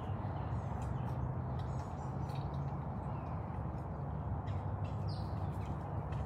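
Birds chirping outdoors, a few short downward-sliding chirps, over a steady low hum and scattered short clicks.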